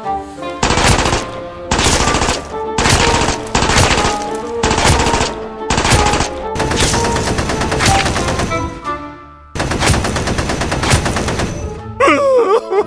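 Automatic-gunfire sound effects dubbed over a Nerf blaster firing: repeated bursts of rapid shots with short gaps between them. A short cry comes near the end.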